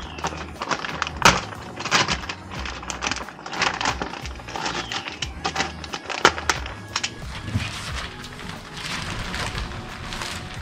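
Background music over irregular crackling and rustling as bags of potting soil are handled and emptied into planter boxes.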